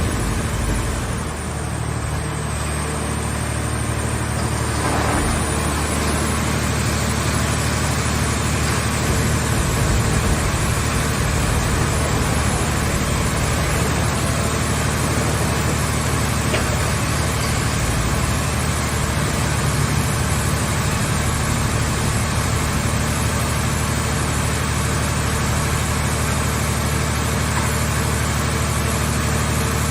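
Car scrap baler's power unit running steadily, a low engine-like hum under a wide mechanical noise, dipping briefly about a second in and then holding steady.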